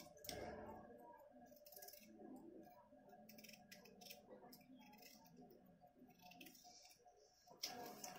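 Faint, scattered knife clicks and scrapes as raw potatoes are peeled and cut by hand with a small knife.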